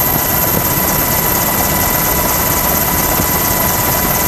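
Helicopter engine and rotor noise heard from aboard the aircraft: a steady loud rush with a constant high whine.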